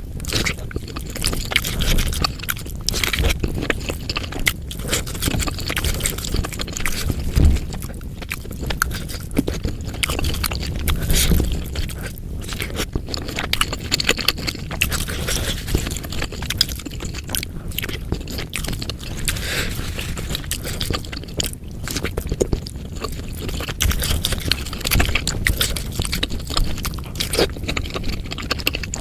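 Close-miked eating sounds: chewing and biting bakso meatballs, with wet, crackly mouth noises and irregular clicks.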